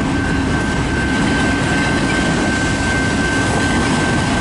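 Freight train of autorack cars rolling past close by: a loud, steady rumble of wheels on rail, with a thin, steady high tone through it.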